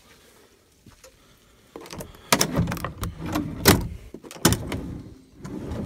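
Handling noises inside a truck cab: after a quiet start, a run of knocks, clicks and rustling begins about two seconds in, with sharper knocks near the middle and a loud one at the end.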